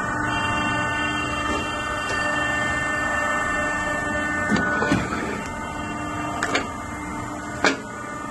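Small vertical injection moulding machine running with a steady hum of several held tones that eases a little about five seconds in. From about four and a half seconds on come a few sharp metal clicks and knocks as the steel mould holding the moulded hose fittings is handled.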